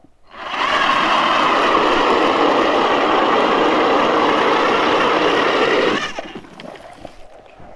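Power ice auger drilling a hole through lake ice: its motor runs up to a steady, loud drilling noise about half a second in, holds for some five seconds, then stops suddenly.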